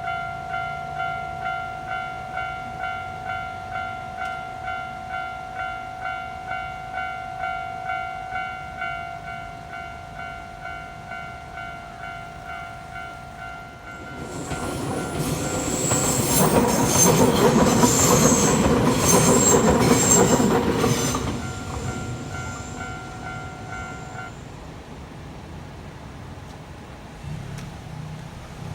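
Japanese level-crossing warning bell ringing in an even, repeating ding, about two strikes a second. About fourteen seconds in, a Nankai Koya Line electric train passes over the crossing, its wheels clattering loudly over the rail joints for about seven seconds. The bell keeps ringing a few seconds after the train has gone, then stops.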